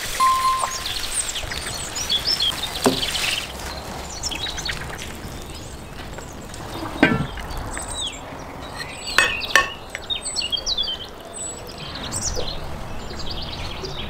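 Small birds chirping on and off, with a few sharp clinks and knocks of cookware.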